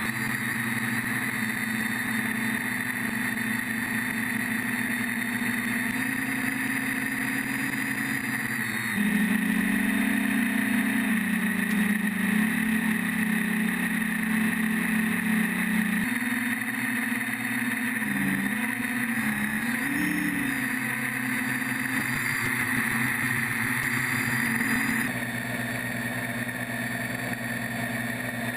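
Quadcopter's electric motors and propellers whining steadily. The pitch steps up and down as the throttle changes, with a wavering rise and fall about two-thirds of the way through.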